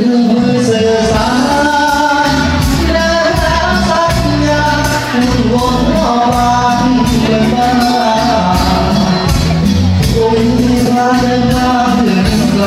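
Live Thai luk thung band music with a singer: a melody carried over a steady beat and a strong bass line.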